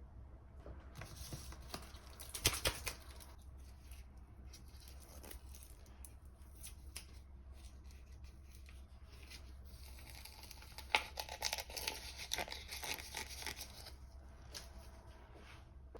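Quiet handling sounds: tearing and crinkling, with a sharp knock about two and a half seconds in and a denser run of rustling after about eleven seconds.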